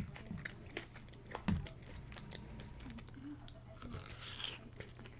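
Close-miked eating sounds: a person chewing a mouthful of instant pho with shrimp, with wet clicks and smacks scattered throughout, a louder smack about a second and a half in and a short hissy slurp-like sound near the end.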